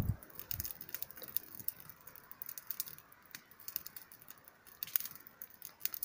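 Small wood campfire crackling faintly with irregular sharp ticks and pops, after a brief low thump at the very start.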